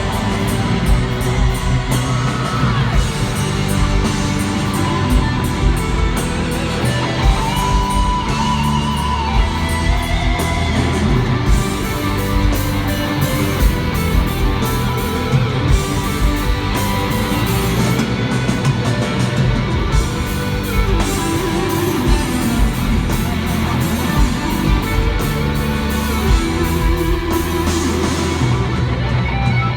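Heavy metal band playing live through an arena sound system: electric guitars over a steady drum beat and bass.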